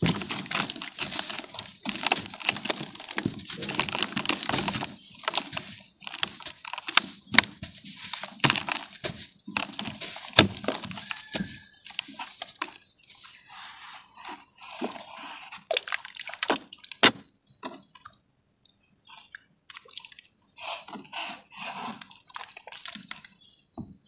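A soaked block of red dirt being crumbled and squeezed by hand into a basin of muddy water: crumbling, crackling and splattering. Dense for the first few seconds, then sparser squelches, plops and drips with short gaps.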